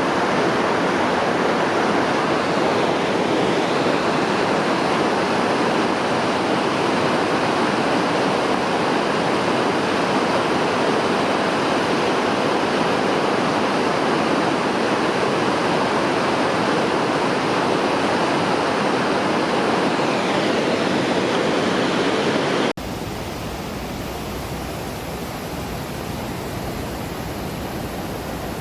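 Mountain river water rushing steadily over rocks and rapids. About three-quarters of the way through, the sound cuts abruptly to a quieter, more even rush of water.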